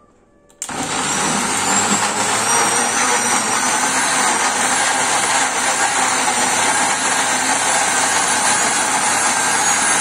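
Becken countertop blender switched on about half a second in, its motor running steadily at speed with a high whine that climbs slightly as it comes up to speed. It is blending a cut-up whole orange with sugar, oil and orange juice into a smooth liquid batter.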